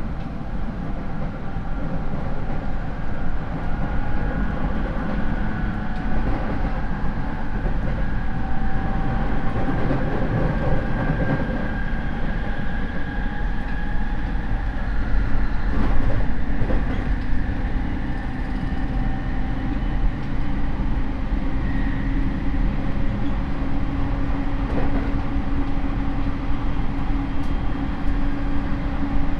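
Rinkai Line 70-000 series electric train running, heard from inside the car: a low rumble of wheels on rail under a whine from its MT73 traction motors and gears, with tones that drift slowly in pitch. This car's motors are unusually loud, and the uploader lists it as an abnormal-noise car.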